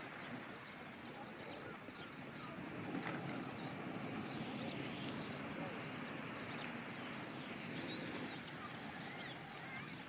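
A flock of starlings chattering: many short, overlapping chirps and whistles with no pause, over a low steady background rush.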